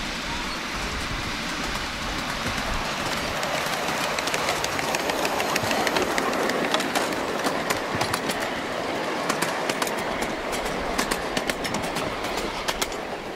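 A ride-on miniature railway train passes close by. It makes a steady rolling rush that swells in the middle, and its steel wheels click on the rails, the clicks coming thicker and faster in the second half.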